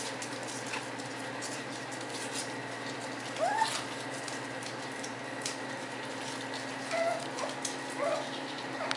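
Puppy giving one short rising whimper about three and a half seconds in, then a few faint whines near the end, over light ticking and rustling as the puppies move about on newspaper.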